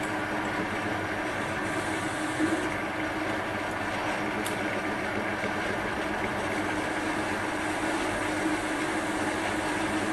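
Well-used Chinese metal lathe running steadily under power feed, turning cast aluminium: an even motor and gear-train hum with a constant low tone.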